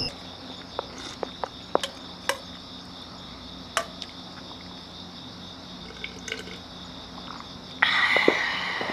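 Night insects, crickets, chirring steadily in the background, with scattered light clicks and taps and a louder burst of noise about eight seconds in.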